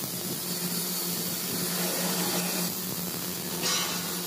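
Electric arc welding on steel grating: the arc's steady crackling hiss, with a steady low hum underneath.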